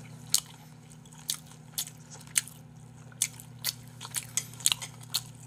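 Close-up crunchy chewing: a person biting and chewing a hard, dry piece of meat snack likened to hardtack, with sharp crunches at irregular intervals, about two a second.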